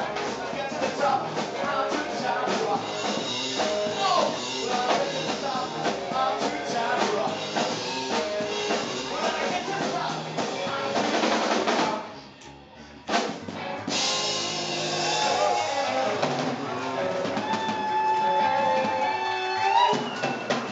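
Live rock and roll band playing: drum kit, electric guitar and upright double bass. About twelve seconds in the music cuts out almost completely for about a second, then a hit brings the band back in.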